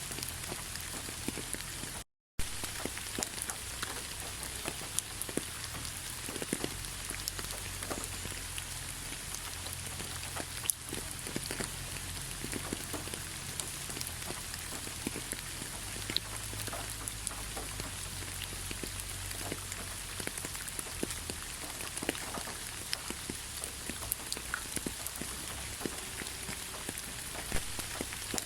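Steady rain falling, an even hiss dotted with many individual drops striking a surface. The sound cuts out completely for a fraction of a second about two seconds in.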